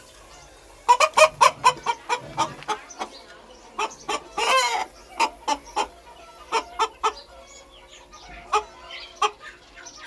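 Aseel chicken clucking: a fast run of short clucks about a second in, one longer drawn-out call midway, then scattered single clucks.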